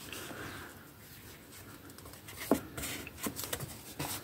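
Stiff card pages of a ring-bound handmade journal being handled and turned: soft paper rustling with a few light taps and clicks, the sharpest about two and a half seconds in.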